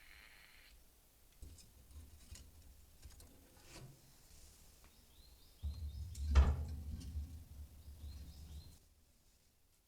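Faint crackles and pops from a wood fire burning in a fireplace. About six seconds in there is a low rumble with one louder pop.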